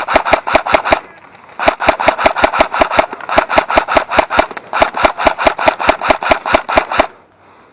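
Airsoft rifle firing rapid strings of shots, about eight a second, each shot a sharp crack. A short string stops about a second in; after a brief pause a long string of shots follows with two very short breaks, stopping abruptly near the end.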